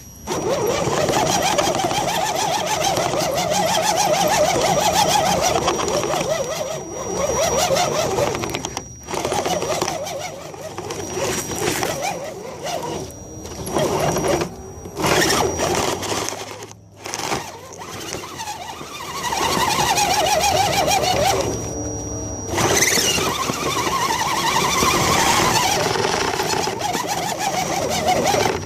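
Axial SCX10 RC crawler's electric motor and drivetrain whining, the pitch wavering up and down with the throttle, with a thin high electronic whistle on top. It cuts out briefly a few times, about nine, seventeen and twenty-two seconds in, as the throttle is let off.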